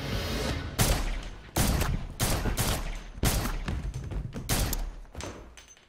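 Gunfire: a string of about ten sharp shots at uneven intervals, each with a short echo, tailing off near the end.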